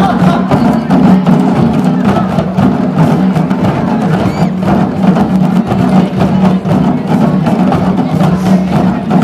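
A large ensemble of djembe hand drums played together in a dense, steady rhythm.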